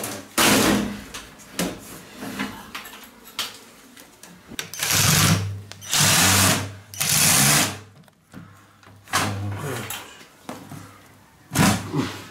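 Cordless drill-driver running in several short bursts as it tries to back out a screw from a shower door's bottom wheel bracket, with the nut held by pliers. The screw will not come out: it is a non-original screw in a stripped hole.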